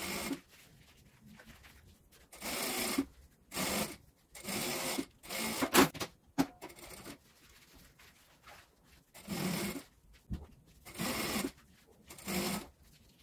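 JACK industrial sewing machine stitching a zipper onto synthetic fabric, running in about eight short spurts of under a second each with quiet gaps, and a pause of a few seconds in the middle.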